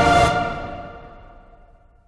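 Background music with held chords, fading out over about a second and a half to near silence.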